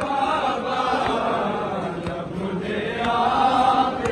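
A large crowd of men chanting a noha, a Muharram lament, together in long, drawn-out sung phrases, with a new phrase swelling about three seconds in.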